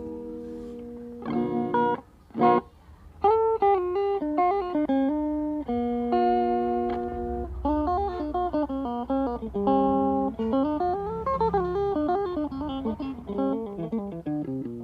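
Electric guitar played through an analog delay pedal with modulation. A ringing chord fades out, a few short chords are struck, and then a single-note melody runs up and down.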